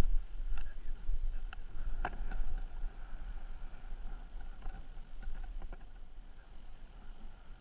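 Wind buffeting an action camera's microphone in a low, rising and falling rumble, with a few light clicks and knocks scattered through it, the sharpest about two seconds in.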